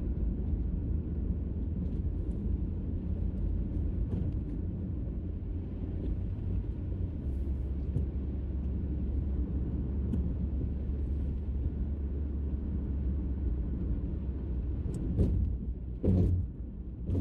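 Steady low rumble of a car's engine and tyres on the road, heard from inside the cabin while driving, with a couple of short thuds near the end.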